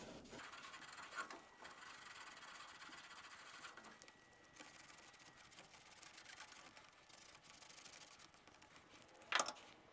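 Faint hiss of nitrogen escaping from the open end of the copper refrigerant line, with a thin steady whistle for a few seconds. Light clicks and scraping as a tubing cutter is fitted onto the copper tube.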